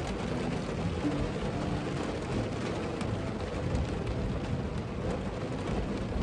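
Rain falling on a car's roof and windshield, heard from inside the vehicle: a steady patter of scattered drop ticks over a low, constant rumble.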